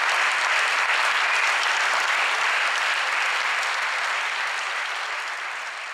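Dense applause from a large crowd, steady and then slowly fading toward the end.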